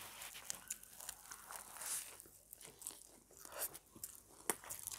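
People chewing and biting into homemade veggie burgers: quiet crunching and scattered short mouth clicks, with one sharper click near the end.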